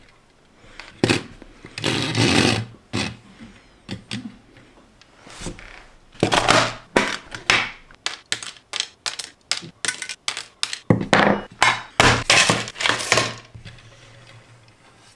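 A finished LEGO car, tweezers and a small metal tin of spare pieces handled on a tabletop: a run of clicks, taps and short scraping slides. A fast patter of clicks comes in the middle, and longer scrapes come near the end.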